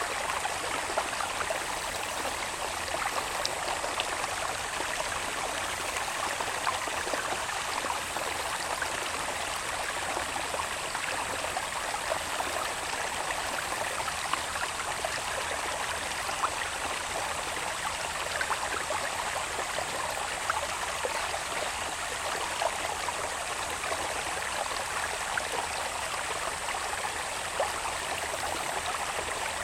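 Shallow water channel babbling steadily over its bed, with a steady high-pitched insect drone running underneath.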